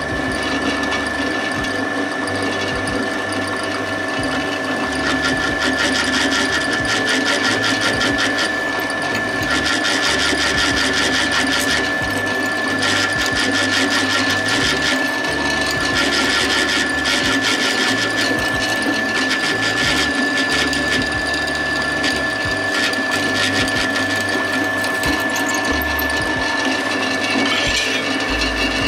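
A power tool machining the aluminium plate: a steady high whine over rapid, continuous chattering, with a low hum that steps up and down every second or two.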